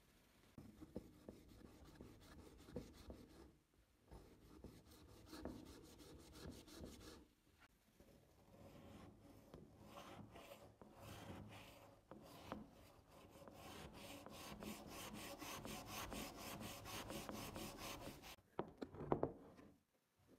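Stainless steel scouring pad rubbed against a rusty gun barrel to scrub the rust off, faint scratchy strokes. The rubbing gets denser and steadier for a few seconds near the end, then stops, followed by a few light clicks.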